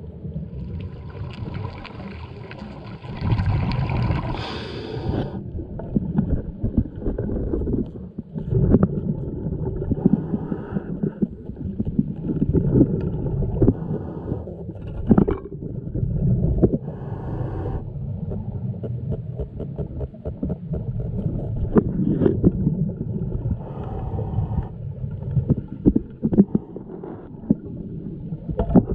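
Underwater sound picked up through a camera housing: a dull, muffled rumble with frequent knocks and scrapes, broken every several seconds by the bubbling rush of a scuba diver's regulator exhaling, the longest about a second in.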